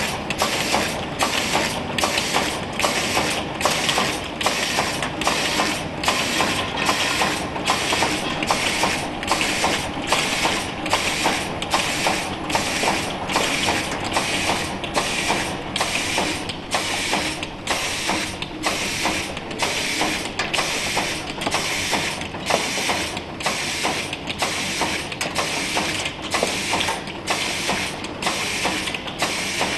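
Cap liner inserting machine running, pressing paper or rubber liners into bottle caps: a steady mechanical clatter with a regular beat, about three cycles every two seconds.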